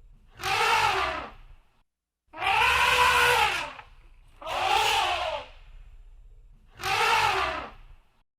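Elephant trumpeting: four harsh, loud blasts of about a second each, every one rising and then falling in pitch, with short pauses between them.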